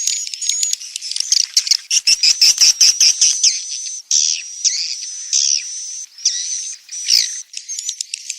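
A flock of swiftlets calling: dense, rapid high-pitched chirps, twitters and clicks, with a thin held whistle-like tone running through many of the calls. This is the kind of swiftlet call played to lure wild swiftlets into nesting houses.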